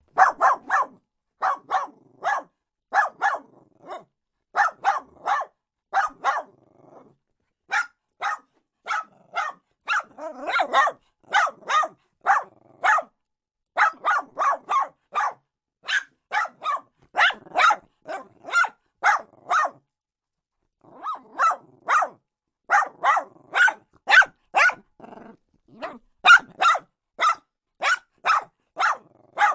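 A dog barking repeatedly in quick runs of two to four sharp barks, with short pauses between the runs.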